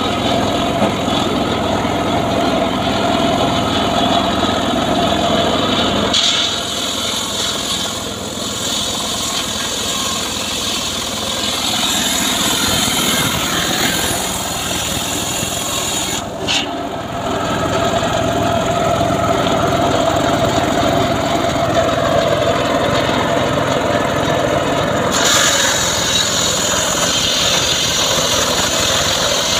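Engine of a homemade portable log-sawing rig running steadily, its sound shifting abruptly a few times.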